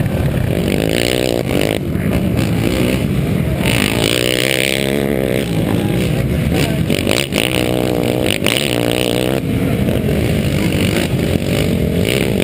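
A field of quad ATV engines idling and revving together on the start line, several machines' revs rising and falling over one another. Nearest is the rider's own Yamaha Warrior 350, a single-cylinder four-stroke.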